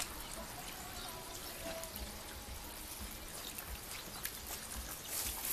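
Water from a garden hose running and trickling steadily over a car's roof and windshield glass.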